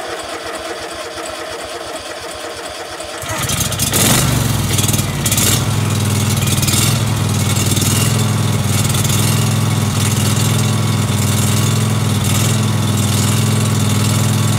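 Kawasaki small engine on a DR brush cutter being started on choke: the electric starter cranks it for about three and a half seconds, then it catches and runs steadily.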